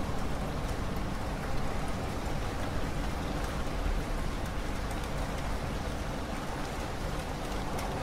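Steady rain falling: an even hiss with individual drops ticking through it.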